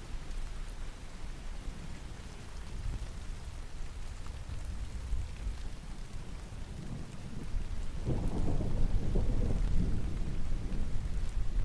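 Steady rain falling, with a low rumble of thunder that builds about seven seconds in, is loudest a second later and eases off near the end.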